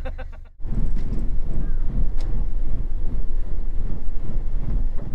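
Wind buffeting the microphone on a boat under way: a loud, uneven low rumble with hiss above it that cuts in about half a second in.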